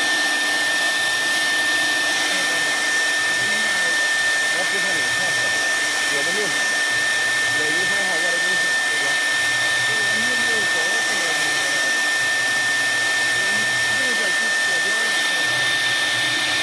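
1325 CNC router running a job under DSP control, its spindle giving a steady high whine over a broad hiss.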